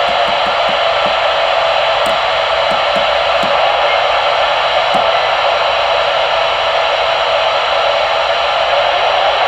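Superstar 3900 CB radio's receiver hissing with steady band static as its channel selector is stepped up through the CB channels, with a click at each step during the first five seconds or so. No stations come through: the band is quiet.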